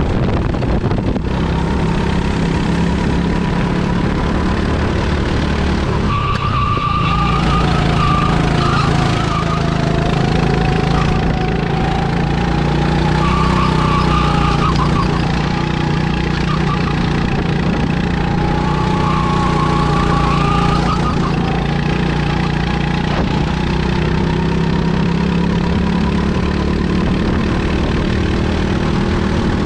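Bizkart rental kart's engine running hard, heard from the driver's seat, its pitch sliding down and back up several times as the kart slows for corners and accelerates out of them.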